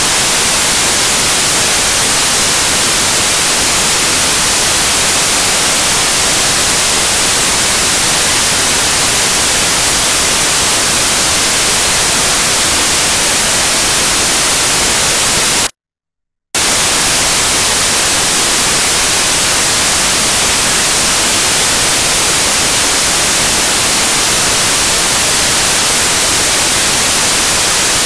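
Loud, steady static hiss, strongest in the treble, with no voices or crowd standing out. It cuts out to silence for under a second a little past halfway, then comes back unchanged.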